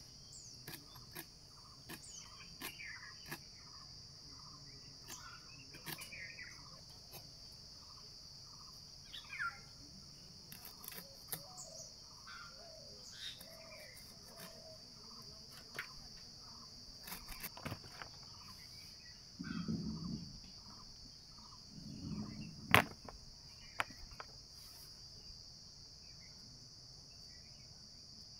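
Insects chirring in a steady high-pitched drone, with bird calls here and there. Over it come scattered sharp clicks as leaf stalks are cut on a fixed curved blade (boti), a couple of dull thuds, and one louder knock about 23 seconds in.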